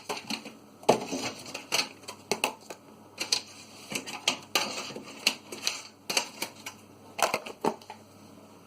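Irregular clatter of food containers and other items being taken out of a fridge and set down: a quick run of sharp knocks and clicks, with a few brief scrapes.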